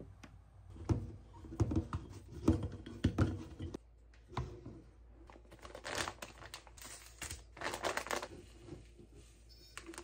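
Plastic packaging crinkling as a stick packet of ginger-tea powder is pulled from its bag and torn open, the crinkling densest in the second half. Several light knocks and handling clicks come in the first few seconds.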